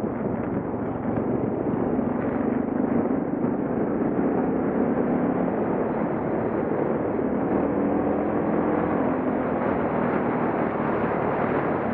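Suzuki DR650's single-cylinder four-stroke engine running steadily while riding a gravel road, mixed with wind rush on the bike-mounted microphone.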